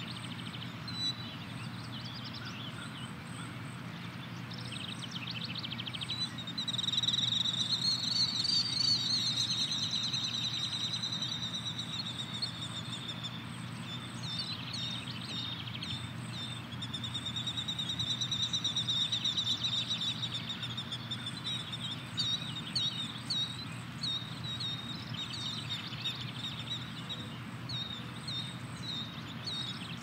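Birds singing: long high wavering trills, twice, and scattered short chirps, over a steady low rumble of rural background noise.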